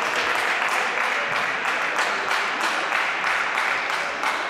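Spectators in a gym clapping and calling out: a steady crowd noise with many sharp, uneven hand claps running through it.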